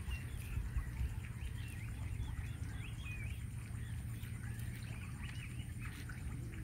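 Small birds chirping and calling, many short rising and falling notes that overlap one another, over a steady low rumble.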